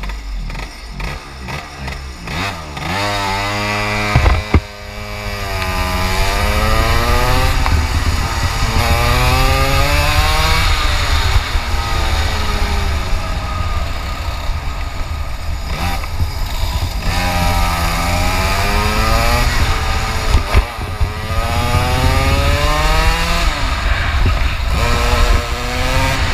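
125 cc two-stroke kart engine at full throttle, its pitch climbing in long sweeps, dropping off, and climbing again, four or five times over. It runs unevenly for the first three seconds or so before the revs start to climb, and there is a sharp knock about four seconds in.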